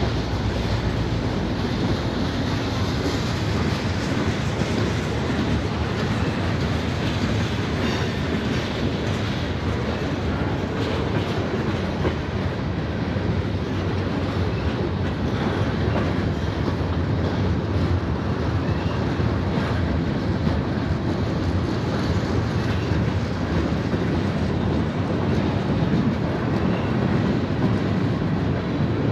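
Freight train cars rolling along the rails: a steady rumble with scattered wheel clicks.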